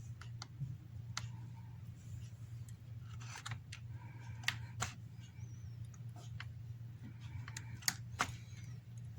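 Small, sharp clicks and taps at irregular intervals as the display flex cable connectors are pressed back onto the iPhone 6s logic board, over a steady low hum.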